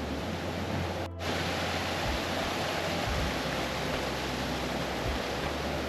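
Steady rushing of a rain-swollen moorland stream and waterfall, with low wind rumble on the microphone. The sound cuts out for an instant about a second in.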